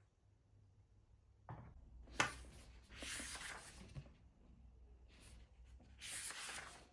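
Household objects being handled: a soft knock, then a sharp click, followed by two stretches of rubbing about a second long each.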